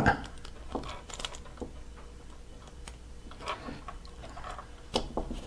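Scattered small clicks and taps of plastic parts being handled as a red plastic cap is worked onto a black test-clip probe.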